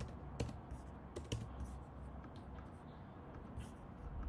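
Computer keyboard typing: irregular keystrokes, a quicker run in the first second or so, then slower, sparser taps.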